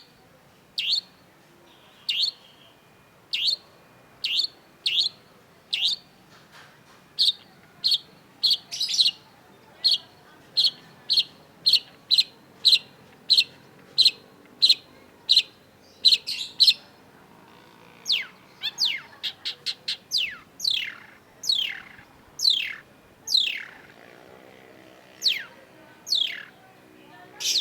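Long-tailed shrike calling: a long run of short, sharp, repeated notes, about two a second, then in the second half a series of whistles that fall steeply in pitch, with a quick burst of notes in the middle of that series.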